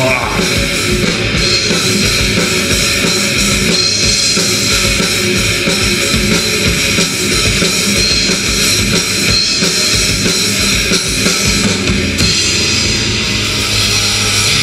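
Live rock band playing loudly through PA speakers: a drum kit with cymbals and electric guitars, steady and unbroken.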